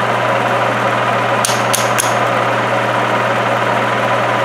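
Milling machine running steadily with a low hum while machining a steel hinge. Three sharp clicks come in quick succession about a second and a half in.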